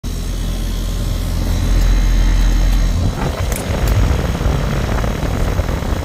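Outdoor air-conditioner condenser unit running, its fan blowing a steady low rumble of moving air. A few light clicks come about halfway through.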